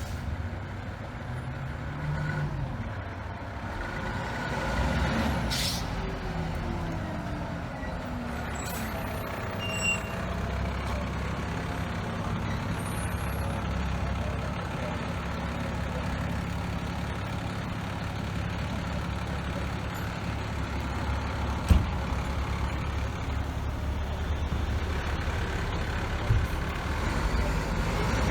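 Fire truck's diesel engine running steadily, with a short hiss of released air from the air brakes about five seconds in. A single sharp knock stands out later on.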